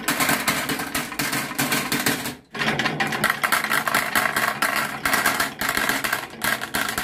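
A stream of glass marbles rolling down a wooden chute, clacking against wooden deflector blocks and each other and dropping into a toy garbage truck's plastic bin. Dense rapid clicking over a steady rolling rumble, breaking off briefly about two and a half seconds in.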